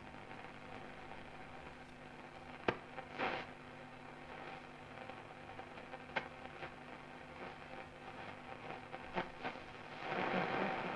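Schaub-Lorenz Goldy 58 tube radio tuned on shortwave: a faint hiss of static with a steady low hum and a few sharp crackles, at about three, six and nine seconds in. Only a very faint signal is coming through, a sign of the set's very poor sensitivity on this band.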